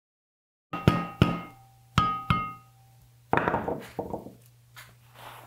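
Two pairs of sharp metallic knocks, each ringing briefly, as a chisel strikes a speaker's metal frame, followed by a stretch of scraping and rubbing.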